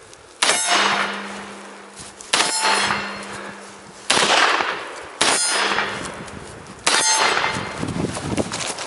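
Five rifle shots from an M1 Carbine (.30 Carbine), spaced one to two seconds apart. Each shot is followed by a steel target plate ringing as it is struck, with a low hum that lingers between shots.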